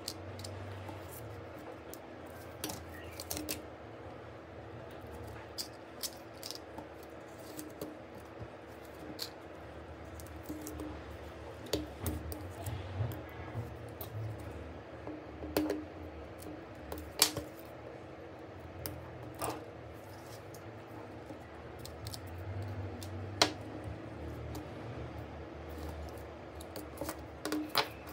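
Small tools clicking and tapping against a smartphone's parts during repair work, in irregular short ticks, some sharper than others, over a steady low hum.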